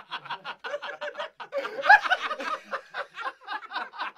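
Rapid stuttering snickering laughter, about six or seven short pulses a second, swelling louder about two seconds in.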